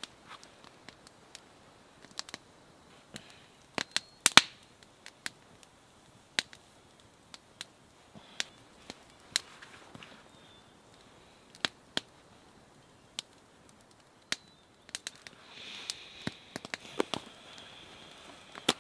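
Wood campfire crackling, with sharp irregular pops and snaps, the loudest about four seconds in. A pencil scratches on paper now and then, most clearly near the end.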